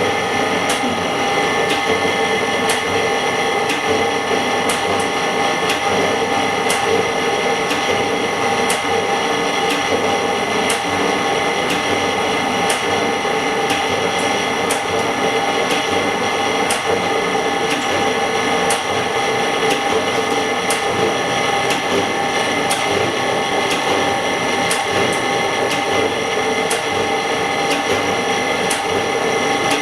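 Semi-automatic LCD separator running: a steady motor whine, with light clicks recurring every second or so, as it drives the steel cutting wire between the cracked glass and the LCD.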